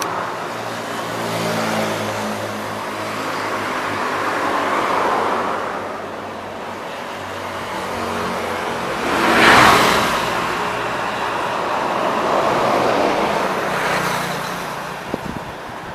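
Road traffic passing one vehicle after another, with buses among it: engine drone and tyre noise swell and fade several times. The loudest pass comes about nine to ten seconds in.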